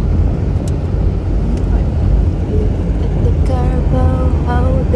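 Steady road and engine rumble of a moving vehicle heard from inside, with heavy low-pitched noise throughout.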